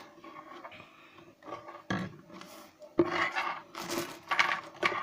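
A wallet stuffed with coins being handled: irregular clinks, knocks and rustling, with the loudest knocks from about three seconds in.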